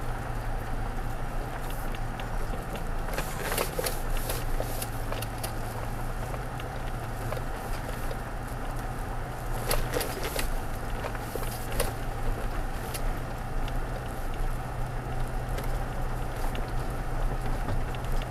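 Inside the cab of a 2016 Toyota Tacoma TRD Off Road crawling along a dirt road: a steady low engine hum with road noise from the tyres on gravel. Scattered sharp clicks and crackles are thickest about three to five seconds in and again around ten to twelve seconds in.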